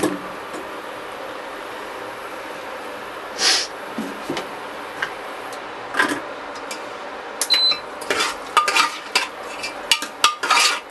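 A metal spoon knocking and scraping against an aluminium pressure cooker as vegetables and masala in water are stirred: a few separate knocks, then busy clatter in the last few seconds. Under it is a steady low sizzle from the hot pan, and about seven and a half seconds in there is a single short electronic beep.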